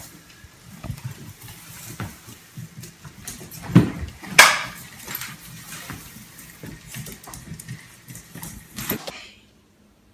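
A small puppy yapping as it chases a broom on a tiled floor, with scuffling and knocks from the broom. Two louder, sharp sounds come about four seconds in, and everything cuts off about a second before the end.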